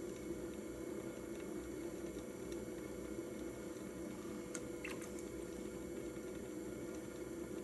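Electric pottery wheel running steadily with a constant hum, while wet clay squishes faintly under the fingers as a mug is thrown. A couple of faint ticks about halfway through.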